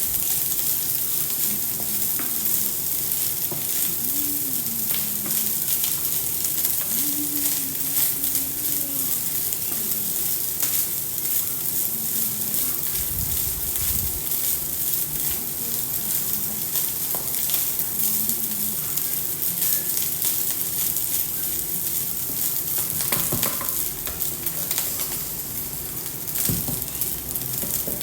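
Rice frying in a hot pan, a steady sizzle full of fine crackles, with a couple of brief knocks in the last few seconds.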